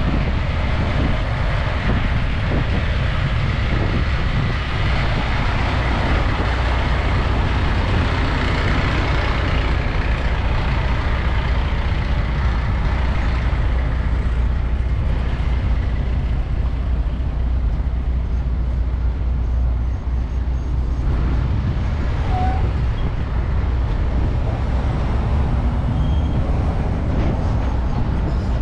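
Steady vehicle road noise with a heavy, constant low rumble.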